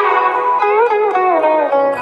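Background music, the instrumental introduction of a song: a plucked string instrument plays a melody whose notes slide from pitch to pitch.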